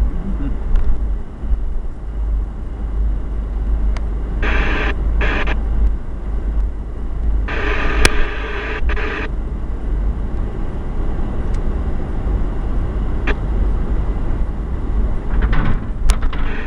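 A car driving, heard from inside the cabin: a steady low rumble of engine and road, with two short bursts of hiss about four and eight seconds in.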